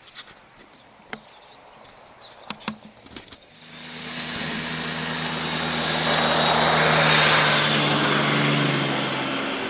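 A few sharp handling clicks and knocks, then a passing vehicle's roar with a steady low hum that builds from about three and a half seconds in, peaks around seven seconds and starts to fade.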